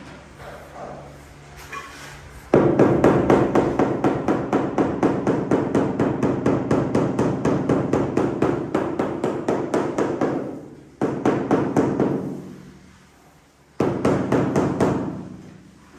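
Rapid, even hammering at about six blows a second, in one long run and then two short bursts.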